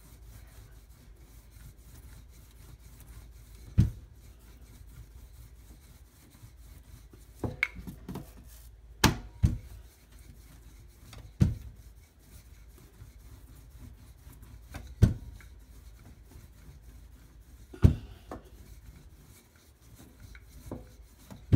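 Wooden rolling pin rolling out a sheet of dough on a countertop: a low steady rubbing, broken by sharp knocks of the pin against the counter, about eight over the stretch.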